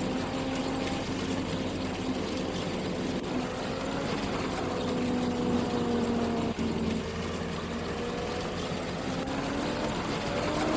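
Combine harvester's engine running steadily, its pitch wavering slightly up and down.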